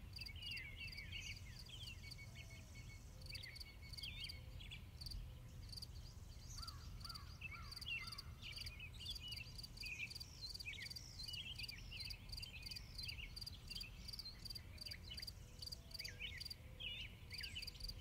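Faint nature ambience: crickets chirping in an even, repeating rhythm, with quick, sweeping high chirps over them and a low rumble beneath.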